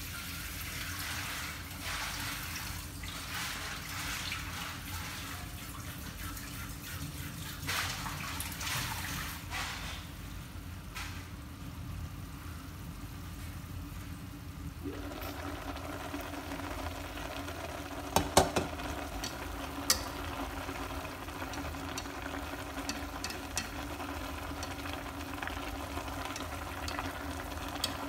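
Fish and mustard-green soup simmering under a glass lid in a stainless steel pot, a steady watery bubbling. About halfway the lid is lifted off and the simmering comes through fuller, with a few sharp clinks of the lid and pot a few seconds later.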